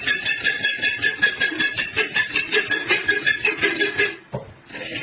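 Quick, even metal-on-metal strokes, about five a second, each leaving a ringing metallic tone; they stop about four seconds in, and a steadier rasping noise starts near the end.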